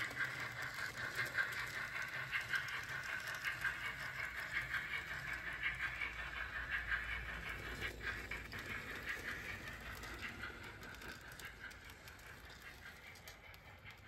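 Sound-fitted N gauge model of an LMS Jubilee steam locomotive coasting, giving only a quiet, fast rattle of wheels and mechanism rather than working beats. It fades away towards the end as the train moves off.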